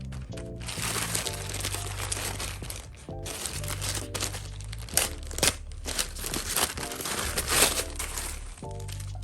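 Packaging crinkling and rustling as it is handled and opened, with a few sharp crackles in the second half, over background music.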